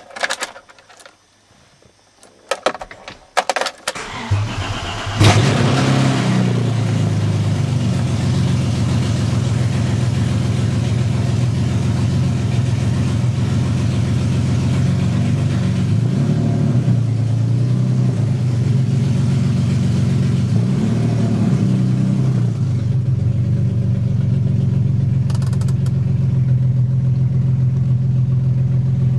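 A few clicks, then a BMW M50NV 24-valve inline-six swapped into an E30 318i cranks briefly and catches about five seconds in with a flare of revs. It settles into a cold idle that surges up and back down twice before steadying: a rough idle, with stored codes for a bad crank sensor and a bad O2 sensor.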